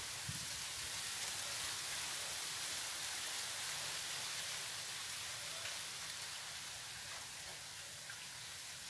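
Steady, even outdoor background hiss with no distinct events, easing slightly towards the end.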